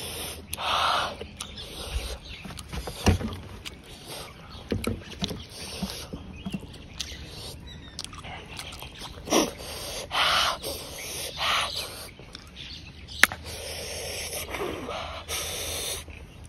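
Close-miked eating sounds: wet chewing and lip-smacking on bone-in chicken eaten by hand, with many small clicks and one sharp click about 13 seconds in.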